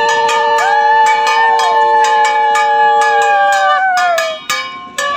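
Metal percussion struck about four times a second, with long blown conch-shell tones and women's trilling ululation over it that glide down and stop about four seconds in: the Bengali welcome sounds as the goddess's idol is installed.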